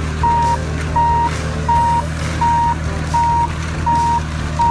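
Reversing beeper of a battery-powered ride-on toy CAT bulldozer, sounding a steady series of short single-pitch beeps, a little under one and a half a second, over a steady low hum.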